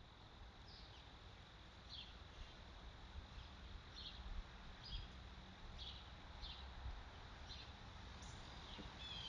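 Faint outdoor ambience with a small bird giving short, high chirps about once a second, over a steady soft hiss.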